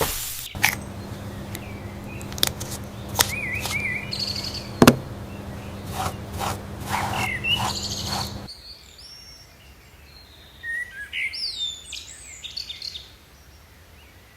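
Small birds chirping, with short whistled glides. Over the first half they sit over a steady low hum and a scatter of sharp clicks and knocks, one loud knock about halfway. After that the hum stops and only quieter chirps remain.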